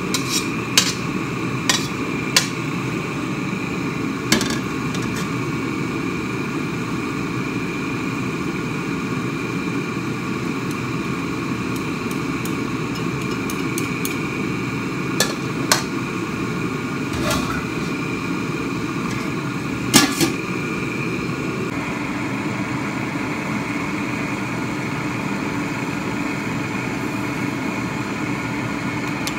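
Metal spatula knocking and scraping against a wok and a steel pot: scattered sharp clanks, several in the first few seconds, two more about halfway through and the loudest shortly after, over a steady low hum.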